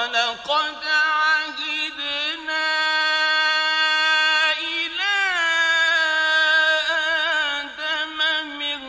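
Male Qur'an reciter chanting in the melodic mujawwad style, one voice holding long, steady notes broken by wavering, sliding ornaments. It comes in sharply out of silence right at the start.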